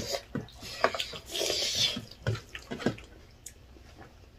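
Wet mouth sounds of people eating rice and spicy chicken curry by hand: chewing, lip-smacking and small clicks, with a short hiss about a second and a half in.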